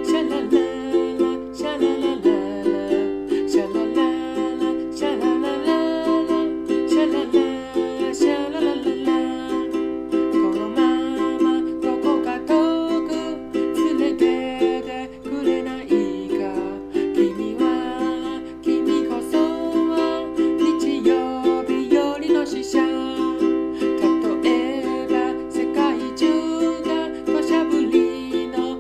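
Millar TA-240K ukulele in standard G-C-E-A tuning, strummed in a steady rhythm, with a man singing along in Japanese.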